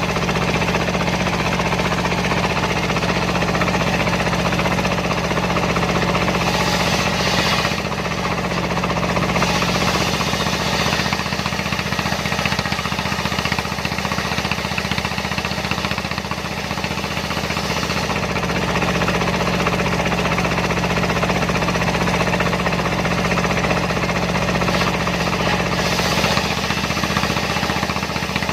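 Dongfeng single-cylinder diesel engine running steadily under a dense, loud, even noise, driving a homemade circular sawmill. The noise brightens briefly a few times.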